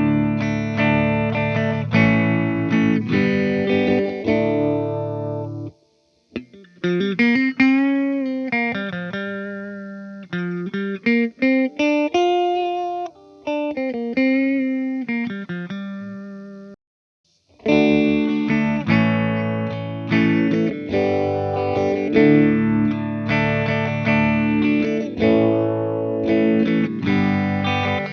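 Epiphone Les Paul Special electric guitar played through a Joyo Vintage Phase phaser pedal into a Fender Tone Master Twin Reverb, recorded direct, its tone sweeping with the phaser. Chords, then single-note lines, then chords again. The rate is at the 9 o'clock setting, and after a brief stop about 17 seconds in it is turned up to 10 o'clock.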